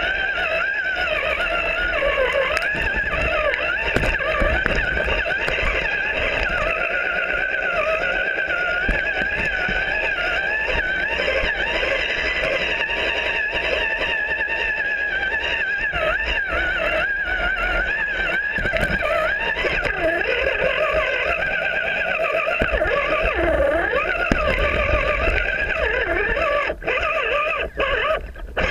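RC rock crawler's electric motor and gearbox whining, the pitch wavering up and down as the truck crawls over rocks, over a low rumble. The whine cuts out briefly twice near the end.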